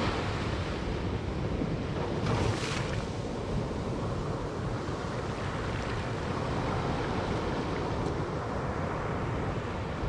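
Ocean surf breaking and washing up over a sand beach: a steady wash of surf with a brief, brighter hiss of foaming water a little over two seconds in.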